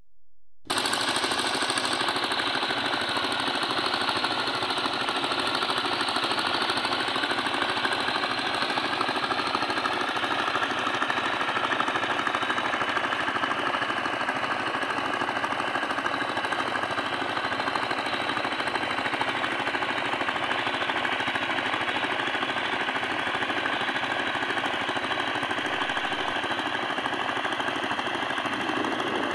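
Diesel engine of a wooden river boat running steadily with a rapid, even knocking beat; it comes in abruptly just under a second in.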